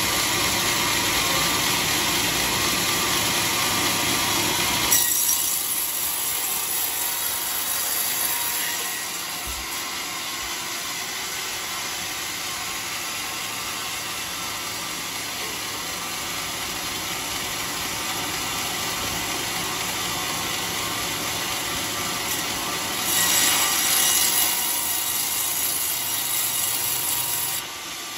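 Band sawmill blade cutting lengthwise through a long coconut palm log: a steady rasping hiss of the blade in the wood. Louder for the first five seconds and again for a few seconds near the end, dropping off just before the end.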